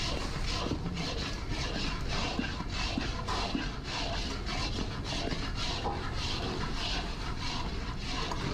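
Metal ladle scraping and stirring a thick ghee-rich milk Mysore pak mixture round the bottom of an iron kadai, in repeated strokes about two a second.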